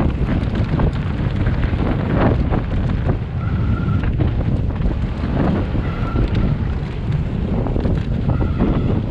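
Wind rushing over the microphone during a downhill mountain-bike run, with the bike rattling and knocking over rough ground. Three brief high-pitched squeals.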